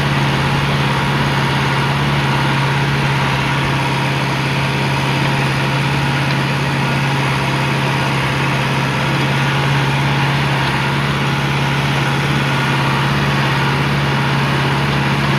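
John Deere tractor engine running steadily at field speed while towing a fertilizer spreader, a constant low drone heard close up from the tractor.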